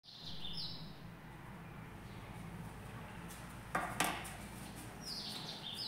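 Quiet room tone with a steady low hum and a pair of sharp clicks about four seconds in. Faint short high-pitched chirps come near the start and again near the end.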